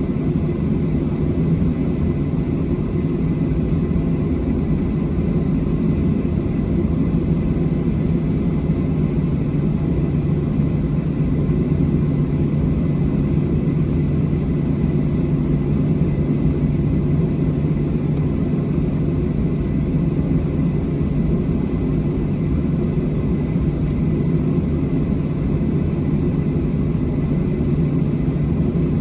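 Steady low rumble of a Boeing 737-700's CFM56 jet engines and airflow as heard from inside the passenger cabin in flight, with a faint steady whine above it.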